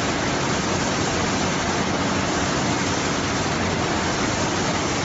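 Steady, even noise of french fries processing machinery running, with no changes or distinct knocks.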